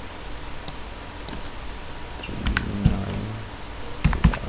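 Computer keyboard keys tapped while a number is typed: a few scattered clicks, then a quick run of keystrokes near the end.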